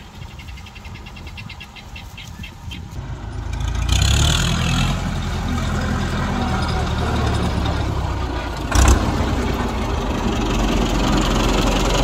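A vehicle engine starts about four seconds in and runs steadily at idle, with a single sharp knock near the nine-second mark.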